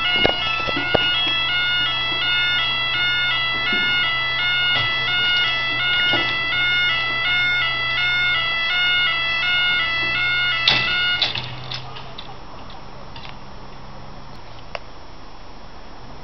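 Level crossing warning alarm sounding its two-tone yodel, repeatedly alternating between two pitches while the barriers lower. It cuts off with a knock about ten and a half seconds in, leaving a low steady hum.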